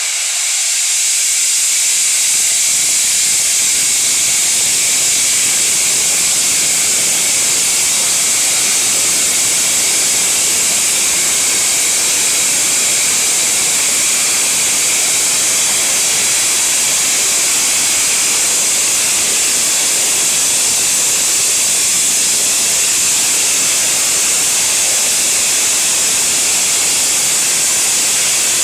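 Rebuilt Bulleid Battle of Britain class Pacific 34053 Sir Keith Park with its cylinder drain cocks open, steam jetting out in one loud, steady hiss as condensed water is cleared from the cylinders before it starts away.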